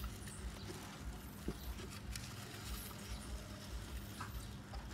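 Faint rustling and light scratching of baby hamsters scrabbling in wood shavings and against a clear plastic box, with a few small ticks. An uneven low rumble lies underneath.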